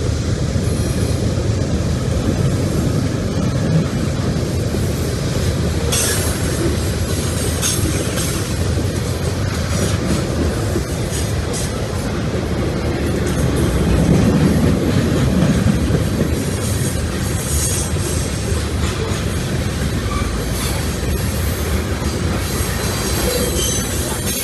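Freight cars of a passing CSX manifest train rolling by, with wheels clacking and squealing against the rails. A louder low rumble swells up about midway through.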